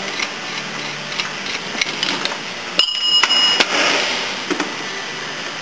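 Metal parts of a ball-joint press tool being handled on a steel workbench, giving scattered light clinks over steady workshop noise. A short high-pitched whine with overtones sounds about three seconds in.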